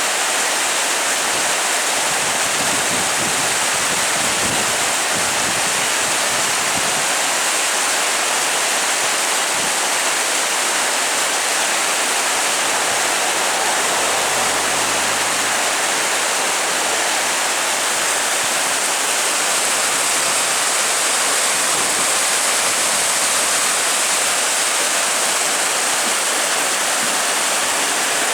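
River Banwy in flood: fast, high water rushing past in a steady, loud roar of noise.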